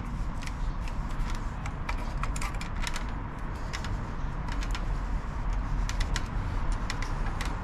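Metal clicks and scrapes as an Akrapovic slip-on muffler is slid onto the motorcycle's link pipe and twisted into position: irregular light clicks.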